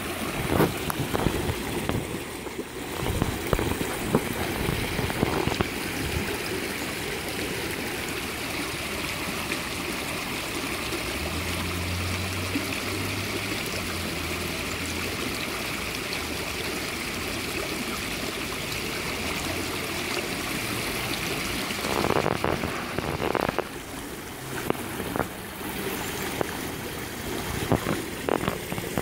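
Shallow freshwater stream babbling and splashing over rocks, a steady rushing flow. A few low rumbles come through in the first few seconds and again near the end.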